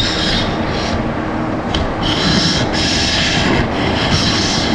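Steady machinery hum and noise of a metal fabrication workshop, with patches of hiss that come and go, some around two seconds in and again near the end.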